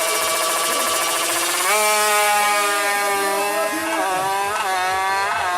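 Tuned motorcycle engine revving: its pitch jumps up sharply about a second and a half in, holds high, then rises and falls in several quick blips of the throttle near the end.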